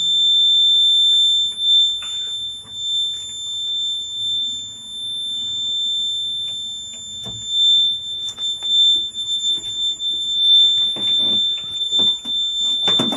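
A steady high-pitched electronic warning buzzer sounding without a break, with a backhoe loader's diesel engine running low underneath and a few short knocks.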